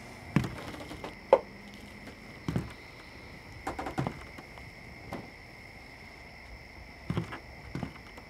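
Slow, uneven footsteps of heavy work boots on a wooden plank floor: a handful of separate knocks a second or so apart, the sharpest about a second and a half in.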